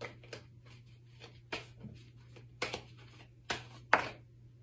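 Tarot cards being shuffled and drawn: a string of short, irregular card snaps and slaps, the loudest near the end, over a faint low steady hum.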